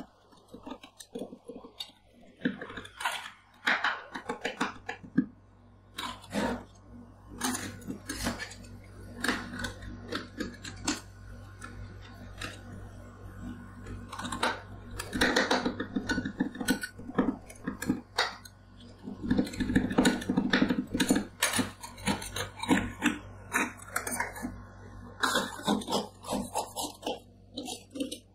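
Two metal spatulas chopping cherry tomatoes on a stainless steel rolled-ice-cream pan: rapid, irregular clacks of the blades striking the metal plate, with stretches of scraping in between.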